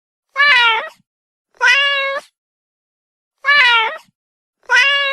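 A domestic cat meowing four times, in two pairs, each meow well under a second long.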